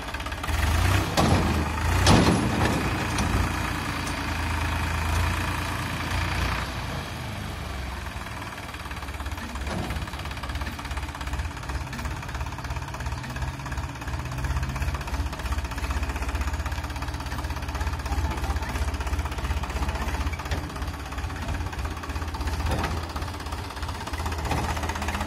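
Massey Ferguson 9000 tractor's three-cylinder diesel engine running with a steady low rumble as it moves its hitched trolley, with a couple of loud clanks about one and two seconds in.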